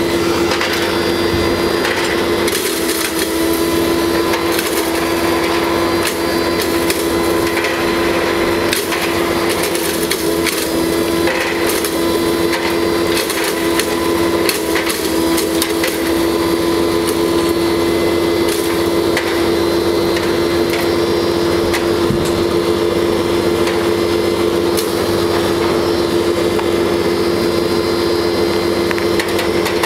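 Belt-driven spice pulverizer of a combined mini rice mill running with a steady hum while hard dried turmeric roots are fed into it, crackling and rattling as they are crushed to powder.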